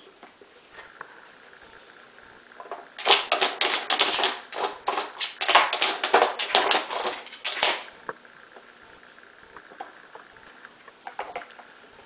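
A dog chewing noisily: a rapid run of sharp crunching clicks that starts about three seconds in and lasts about four and a half seconds, with a few quieter clicks near the end.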